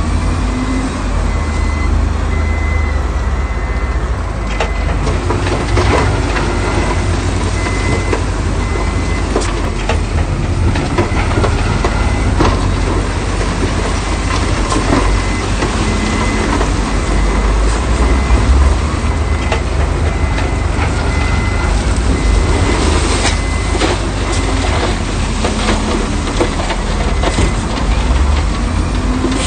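Heavy diesel earthmoving machinery running steadily with a deep engine drone, with scattered knocks and clanks over it. A faint, regularly interrupted high beep runs underneath.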